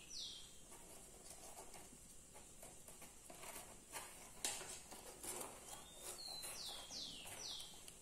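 Faint rustling and light clicks of woven straws being handled and pushed between spokes, the sharpest click about four and a half seconds in. A bird calls with a quick series of three or four falling whistled notes about six seconds in.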